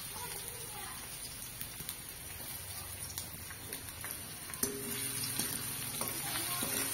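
Food sizzling in hot oil in a pan, an even crackling hiss with a few light clicks. A steady humming tone comes in about two-thirds of the way through.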